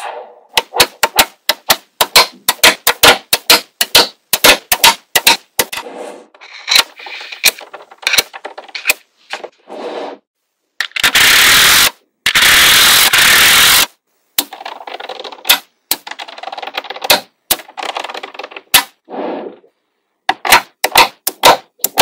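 Small magnetic balls clicking and snapping together in quick, irregular clacks as sheets of them are laid and pressed into place. About halfway through there are two loud stretches of dense rattling noise, about a second each.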